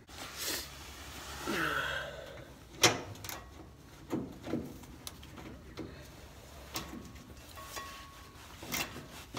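Irregular light clicks and knocks of metal on metal as a loosened nut on a pickup's rear bump stop bracket is worked by hand, about a dozen scattered taps with no steady rhythm.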